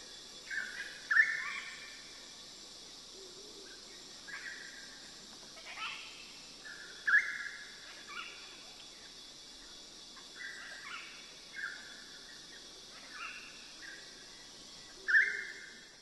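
Moluccan (salmon-crested) cockatoos calling: a string of short squawks, the loudest about a second in, midway and near the end, over a steady high hiss.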